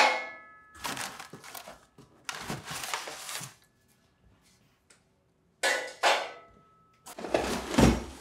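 Square steel tubes clanking as they are pulled from a shipping box and laid on a steel welding table, each knock ringing briefly, with rustling of kraft-paper packing in between. A heavier knock with a low thud comes near the end.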